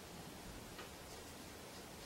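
Mostly quiet, with a couple of faint light ticks from the wooden balls of a pendulum wave machine shifting against the wooden stick that holds them back.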